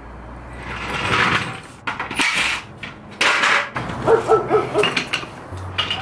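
Hydraulic floor jack being pumped to lift a car, a stroke about every second, followed by a run of short squeaks.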